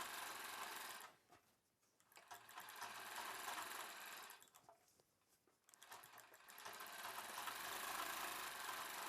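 Sewing machine stitching in three runs, stopping briefly twice, as a neck strip is sewn onto a blouse neckline.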